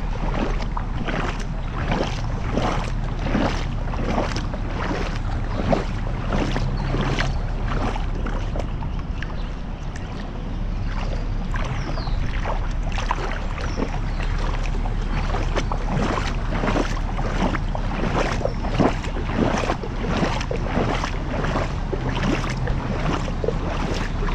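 Vehicle running in heavy rain: a steady low engine hum under a constant rush of water noise, with sharp hits repeating about twice a second.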